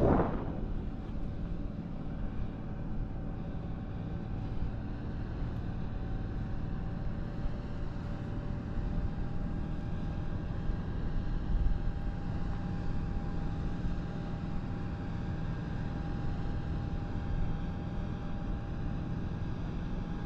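Wind rushing over an action camera's microphone on a parasail under tow, a steady low rush with a louder gust at the very start. A thin steady high whine runs underneath.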